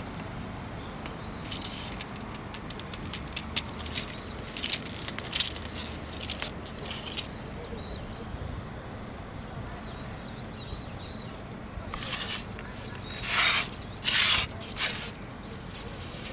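Fingers handling a telescopic iso fishing rod, sliding and pressing a line guide along the rod blank: short scattered scrapes and clicks, with a louder run of scraping about twelve to fifteen seconds in.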